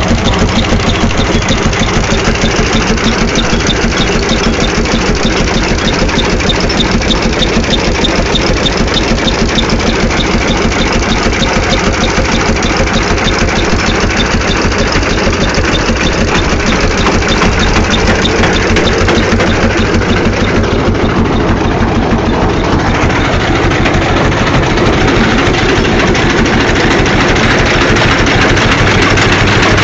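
1917 Townsend 10-20 antique tractor's engine running at a steady speed, with an even beat of firing pulses.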